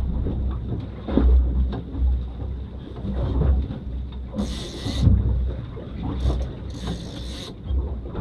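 Small boat at sea: wind buffeting the microphone and water washing against the hull, with two short hissing splashes of spray about four and a half and seven seconds in.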